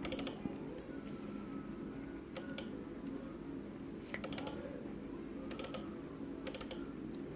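Computer mouse button clicks in short quick groups, double-clicks a second or two apart, over a steady low hum.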